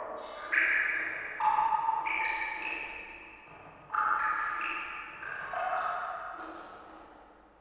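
Water drops falling one after another into standing water, each a high, pitched plink that rings on with a long echoing decay, about eight or nine drops at uneven spacing.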